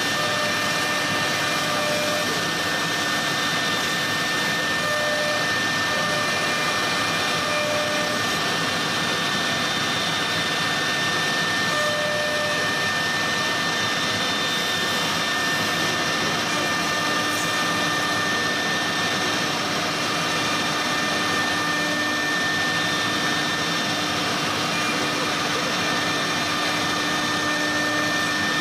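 A CNC door router's horizontal side-drilling spindle running at speed as its bit bores into the edge of a wooden door panel. It makes a steady high whine over a constant rushing noise.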